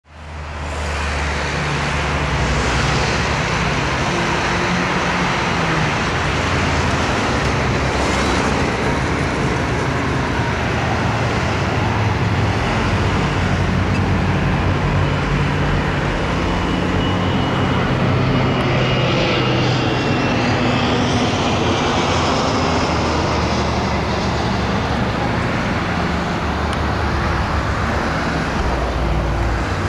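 Embraer 145 regional jet's twin turbofans on landing approach: a steady rushing jet noise, with a thin engine whine that slides down in pitch and a sweeping swirl partway through as the jet passes, over a low steady rumble.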